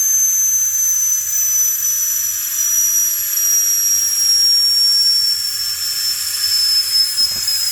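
Pressurized gas hissing out of refrigerator sealed-system tubing, with a high whistle that slowly falls in pitch as the pressure drops.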